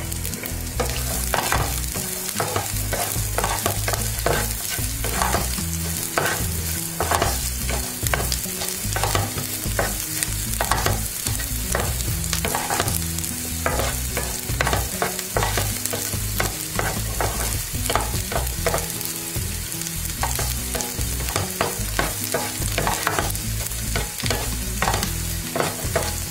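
Chopped garlic, dried red chillies and curry leaves sizzling in hot oil in a nonstick frying pan, with a wooden spatula scraping and knocking against the pan in repeated stirring strokes.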